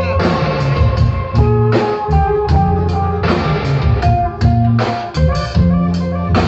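Live band playing a song: guitars over a drum kit, with a steady beat of drum and cymbal hits under sustained low notes.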